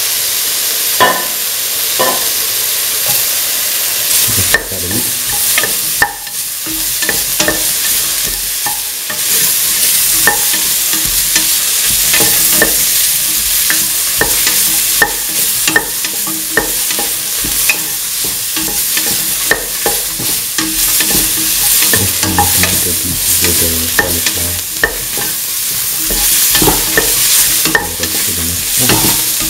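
Cauliflower, bell pepper and onion sizzling in hot oil in a metal pan as a utensil stirs them, with frequent irregular scrapes and clacks against the pan over a steady frying hiss.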